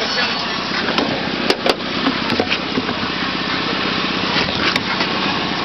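A vehicle driving on the highway: steady engine and road noise with wind on the microphone from the open window, and a few sharp clicks.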